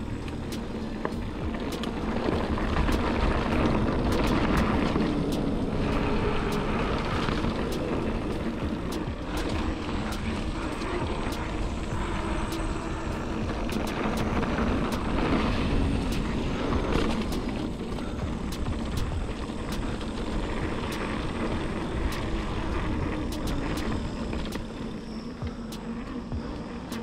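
Mountain bike rolling over dirt singletrack, heard from a handlebar-mounted GoPro Hero 8: wind rumble on the microphone and tyre noise, with frequent sharp clicks and rattles from the bike over the bumps.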